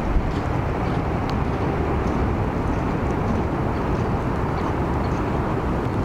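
Steady outdoor background noise: an even low rumble and hiss with no distinct event, with a few faint ticks.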